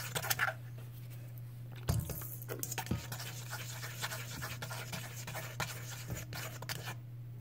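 A broken spoon stub stirring glue slime in a metal bowl as it is activated: scattered scrapes, clicks and sticky sounds over a steady low hum.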